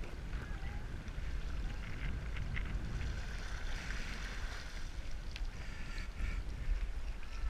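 Water hissing and splashing along a windsurf board under sail, with wind buffeting the camera's microphone as a steady low rumble.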